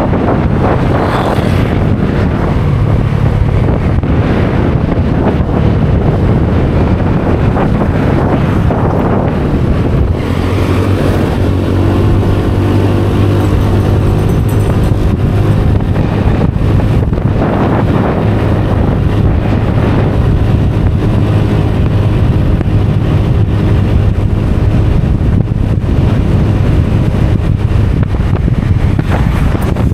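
Motor scooter riding at road speed: wind buffeting the microphone over the steady hum of the scooter's engine. Around the middle, for a few seconds, the engine note stands out more clearly.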